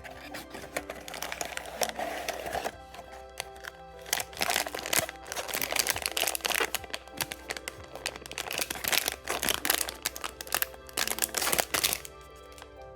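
Crinkling and crackling of a blind-box toy's plastic wrap and cardboard packaging being torn open and handled, in dense clusters through the middle, over steady background music.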